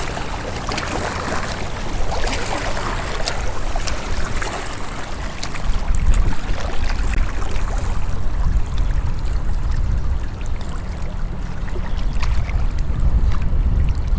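Outdoor water sound, running or lapping water, under a strong, uneven low rumble of wind buffeting the microphone, with a few faint ticks.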